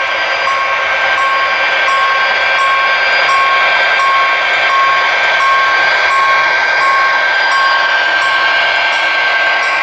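HO scale model diesel locomotive with onboard sound running steadily, a constant high whine over a hissy engine rumble, with a repeating beep about 1.4 times a second.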